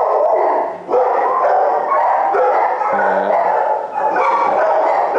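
Several dogs barking and yipping in shelter kennels, a loud, unbroken din with no pauses.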